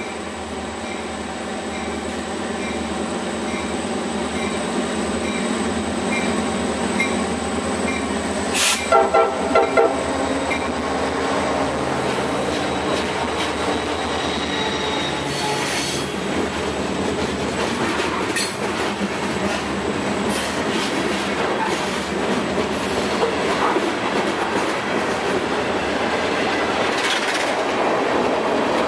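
CSX EMD SD40-2 diesel locomotives, each with a 16-cylinder two-stroke engine, approach and pass with a steady engine drone, and a few short horn toots sound about nine seconds in. Then loaded freight cars roll by with growing rail clatter and occasional brief wheel squeals.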